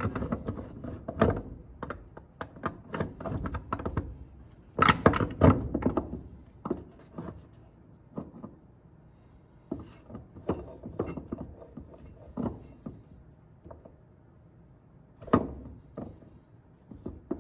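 Kia/Hyundai 2.4 balance shafts and their gears being handled and pressed into the cast aluminium housing while the counterweights are set parallel: a string of sharp metal clicks and knocks, with a louder cluster about five seconds in and another knock near the end.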